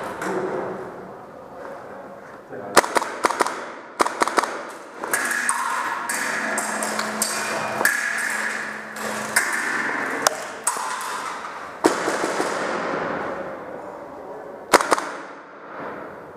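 Airsoft guns firing in short, rapid bursts of sharp cracks, several times over, with voices in between.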